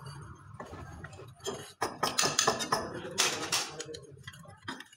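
Spanner or ratchet working bolts on a tractor engine: a run of metallic clicks and clinks of tool on steel.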